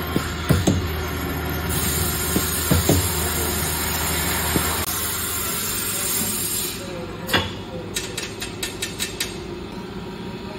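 Twin-spindle bolt cross-drilling machine running, its drills cutting cross holes through steel bolt heads. The low motor hum stops about halfway, and the machine noise fades soon after; then a single knock and a quick run of light metallic clicks follow as the fixture is handled.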